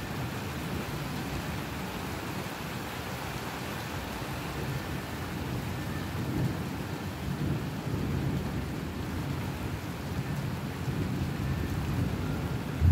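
Rain falling steadily in a thunderstorm, with thunder rumbling low underneath; the rumble swells about halfway through, and a louder peal of thunder breaks in right at the end.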